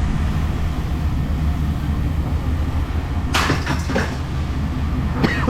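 An engine running at a steady idle, with a short clatter of metal scrap about three and a half seconds in and another clatter with a brief squeak near the end.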